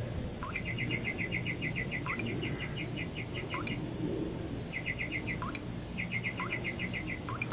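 Birds chirping in quick repeated runs, with a short rising note about once a second, over a steady low hum. Heard through a doorbell camera's microphone, so the sound is thin and cut off at the top.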